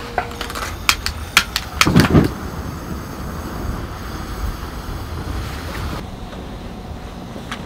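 Steady wind rushing over the microphone, with a run of sharp clicks in the first couple of seconds and a dull knock about two seconds in.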